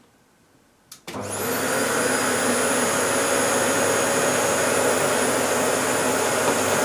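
A 1400-watt Electrolux Bolido cylinder vacuum cleaner starting after a click about a second in: the motor spins up with a high whine rising over half a second, then runs steadily on its minimum power setting. It starts the moment it gets power because its switch was left in the on position.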